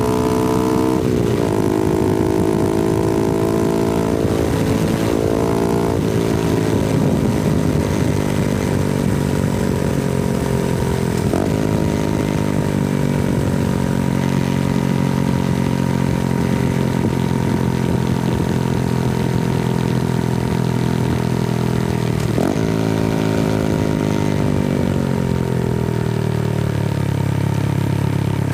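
Honda Grom's 125cc single-cylinder engine running under way downhill on a twisty road. The exhaust note jumps sharply several times, at about 1, 6, 11 and 22 seconds, and eases down in pitch between the jumps as the engine brakes. Light wind noise runs under it.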